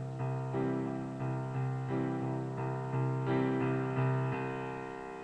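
Piano playing an instrumental passage of repeated chords between sung lines of a song, the chords struck several times a second and dying away near the end.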